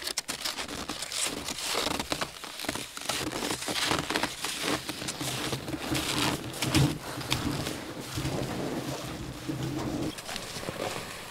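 Footsteps crunching in deep snow with a loaded gear sled dragging behind on a tow line. A low, steady hum runs underneath from about three seconds in until shortly before the end.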